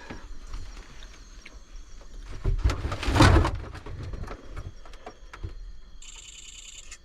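Handling noise: scattered knocks and rustling, with a louder rustling thump about three seconds in. Near the end comes a brief high pulsing tone lasting about a second.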